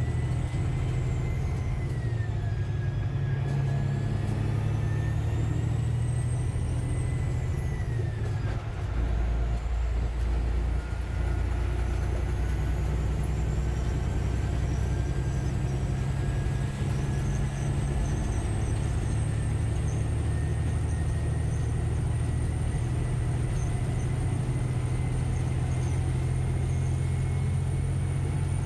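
Diesel engine of a Peterbilt 389 glider truck under way, heard inside the cab: a steady low drone with a thin whistle that rises and falls. The engine note changes about nine seconds in.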